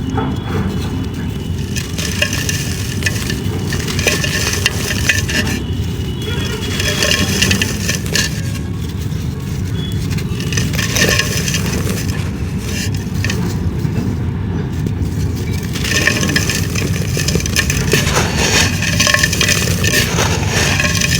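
Dried clay being crumbled by hand: continuous crisp crackling and gritty crunching that swells and eases in stretches, over a steady low rumble.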